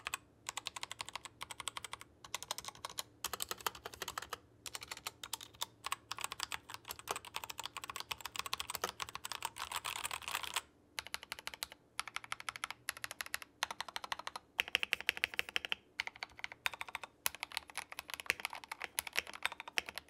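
Royal Kludge RK84 mechanical keyboards being typed on fast: first a totally stock unit, whose stabilizers are untuned, then, after a short break about halfway, a modded build with tuned stabilizers. Rapid clacking keystrokes with brief pauses in the typing.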